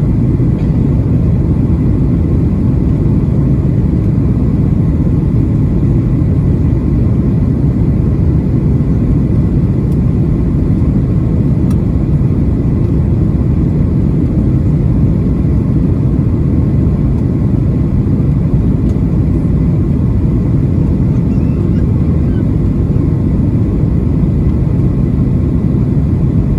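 Steady in-flight cabin noise of a Boeing 737-800: deep, even engine and airflow rumble, with a faint steady whine above it.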